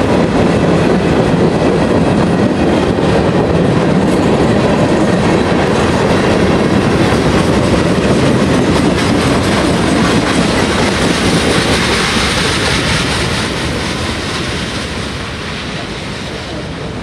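Freight cars of a CSX manifest train, gondolas and boxcars, rolling past with their wheels clattering over the rail joints. The sound is loud and steady, then begins to fade about thirteen seconds in as the end of the train passes and draws away.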